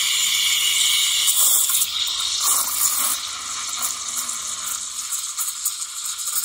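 Steam wand of an LR24 espresso machine hissing as it steams and froths milk in a stainless pitcher. The hiss is loudest for the first few seconds, then settles a little lower as the milk keeps swirling.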